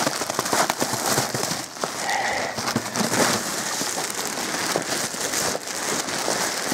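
Plastic stretch wrap crinkling and crackling as it is pulled and torn off a pallet of bagged wood pellets, a dense run of small clicks and rustles.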